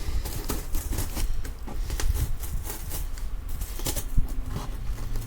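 Irregular clicks, taps and rustles of small objects being handled, with a sharper knock about four seconds in, over a low steady hum.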